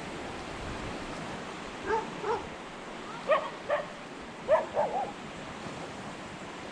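A dog barking in short, high yaps, about seven of them in quick groups, over a steady hiss of background noise.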